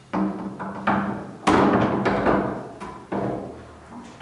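A wooden barn door being lifted and hung back onto its steel sliding track: a run of clunks and knocks as the hangers meet the rail, about five in all, the loudest about a second and a half in. A steady low hum runs under them.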